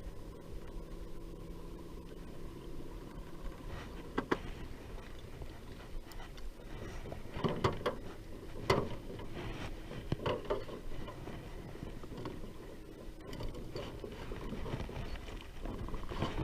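A low steady hum from the boat for about the first four seconds, then scattered knocks and clunks on the boat, several in a cluster around the middle.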